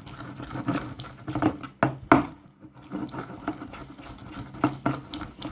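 Spoon stirring slime in a bowl: irregular clicks and taps of the spoon against the bowl.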